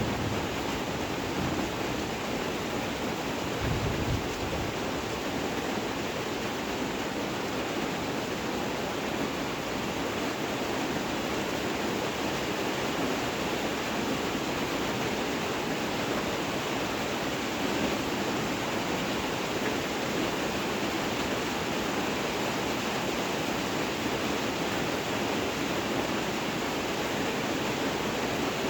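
Steady, dense hiss of heavy rain, with a brief low rumble of thunder about four seconds in.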